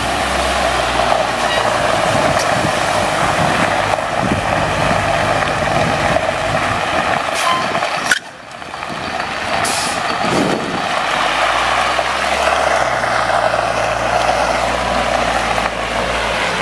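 Caterpillar C7 diesel engine of a Chevy C7500 water truck running as it drives, under the steady hiss of water spraying from its spray bar.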